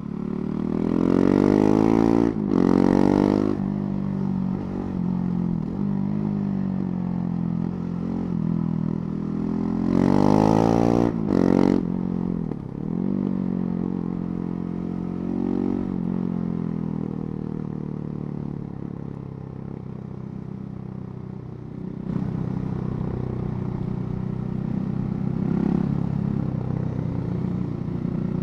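KTM 690 Duke's single-cylinder engine under way, pulling hard twice with quickly rising revs, each pull broken by a short gap of an upshift. In between and afterwards it runs at steadier road revs.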